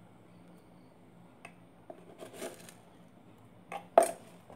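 Small kitchen handling sounds as cumin seeds are tipped from a plastic spoon into a glass mixing bowl of flour: a few faint ticks and a soft rustle, then one sharp tap about four seconds in.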